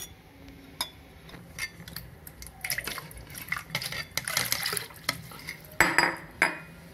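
Metal spoon clinking and scraping in a metal bowl of gram-flour and yogurt batter, with water poured in midway to thin it. Two sharp clinks of the spoon on the bowl near the end are the loudest sounds.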